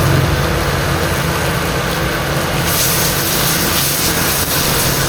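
Kitchen cooking noise: a steady low rumble from a gas burner, with a loud hiss of sizzling over open flame starting about halfway through.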